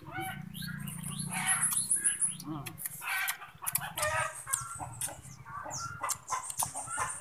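Chickens clucking in a string of short calls, with a high chirp about a second and a half in.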